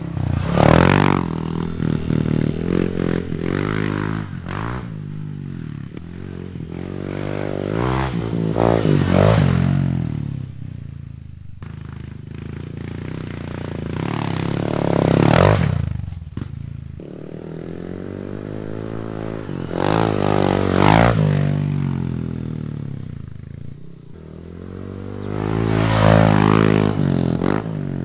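Honda Trail 125 (CT125) single-cylinder engine through a Yoshimura straight-through full exhaust, repeatedly climbing in revs and then easing off, with about five loud swells.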